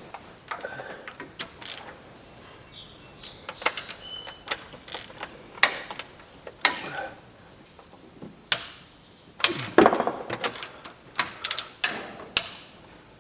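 Scattered metallic clicks and clinks of hand tools and bolts, with a cluster of louder knocks in the second half, as the timing gear bolts are worked into place on the engine's front.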